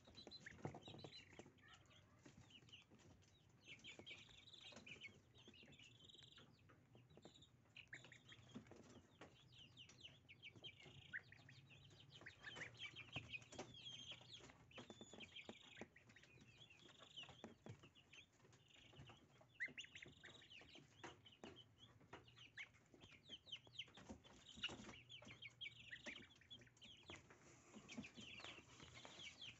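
Goslings peeping quietly with many short, high calls while they peck and tug at a bunch of fresh dill, with frequent small clicks and rustles from their bills working the stems.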